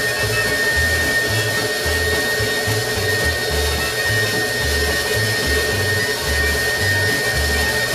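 Stand mixer motor running steadily with a high whine, driving a pasta roller attachment as a sheet of pasta dough is fed through. Background music with a bass line plays underneath.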